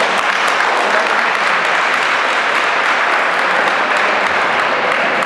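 Applause from a small crowd in a sports hall: many hands clapping steadily.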